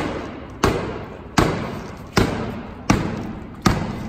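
A length of railway track pounded repeatedly onto a concrete-stamping stencil, six heavy strikes about three-quarters of a second apart, each with a short ring. Each blow drives the stencil into the wet concrete to press in the diamond traction grooves.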